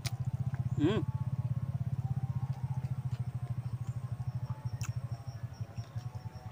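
Motorcycle engine idling steadily, a fast low putter. About a second in there is a short squeak that rises and falls in pitch.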